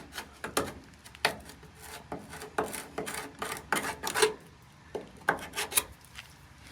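A hand tool scraping and knocking at thick, gummed-up old-fuel residue in a truck cab's floor, in irregular strokes and taps.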